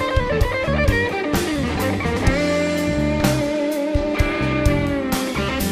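Live blues band playing an instrumental passage: electric guitar lead with long held, slightly bending notes over drums and bass.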